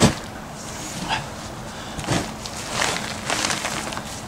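Spoiled maize silage being worked off the top of a clamp into a loader bucket: a sharp knock at the start, then scattered scrapes, rustles and dull knocks, over a faint steady hum.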